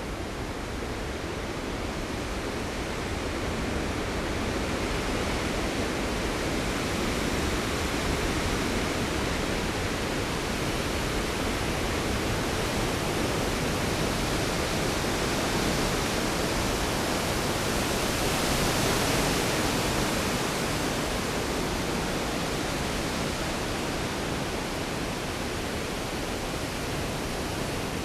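Storm ambience: a dense, steady rushing hiss of rain and wind that slowly builds, is loudest a little over two-thirds of the way through, then eases slightly, with no thunderclaps.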